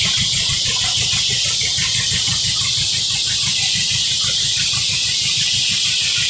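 A Turner sawmill driven by a 1935 John Deere Type W-111 two-cylinder power unit runs steadily, with the engine's regular low chug under a strong, even high hiss.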